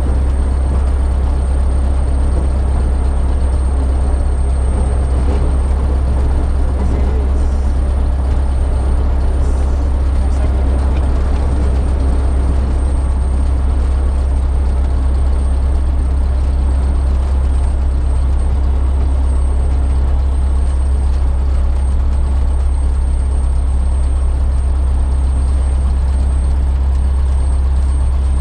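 Light single-engine airplane's piston engine and propeller heard from inside the cockpit, running steadily at low taxi power with an even, low drone.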